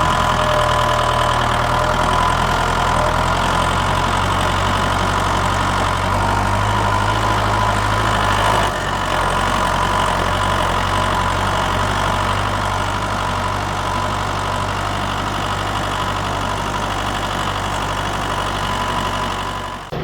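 An engine running steadily, a low drone whose low notes shift about nine seconds in.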